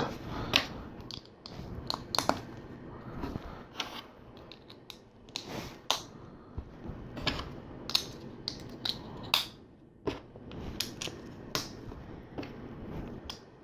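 LEGO bricks being handled and pressed together: irregular sharp plastic clicks and taps, a few every second.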